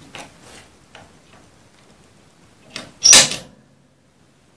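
Tools and small metal parts handled on a wooden workbench: a few light clicks, then one short, louder clatter about three seconds in.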